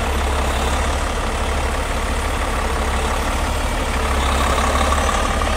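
Diesel engine of a Peterbilt semi tractor running steadily with a deep rumble, growing louder about four seconds in.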